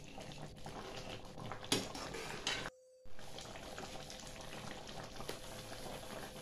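Tomato pickle simmering and bubbling in a metal kadhai while a metal ladle stirs it, knocking against the pan twice in the first half. The sound cuts out for a moment about three seconds in, then the steady bubbling goes on.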